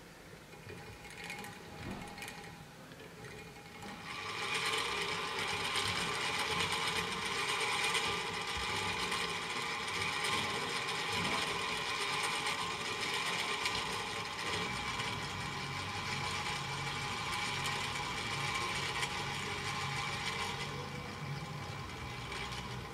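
Hand-cranked clockwork sculpture: a few light clicks as the crank is wound, then about four seconds in the gear train runs and sets a disc spinning against a rubber finger, making a steady mechanical whirr with several held tones. The whirr thins out shortly before the end.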